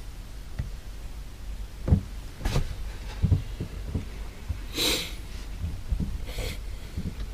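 Handling and movement noise of a person shifting at a desk: several dull low thumps and knocks, with two short hissy rustles in the second half.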